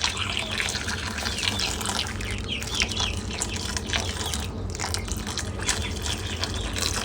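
Boiling water poured from a kettle into a heat-resistant glass bowl of fruit: a steady splashing, bubbling pour.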